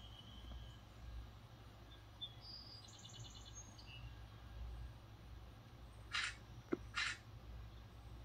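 Quiet outdoor background with a steady low rumble and faint high bird chirps. Two short hissing bursts about six and seven seconds in, with a sharp click between them, are the loudest sounds.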